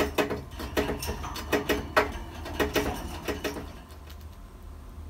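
Rapid, irregular small clicks and taps, each with a short ringing tail, stopping about three and a half seconds in.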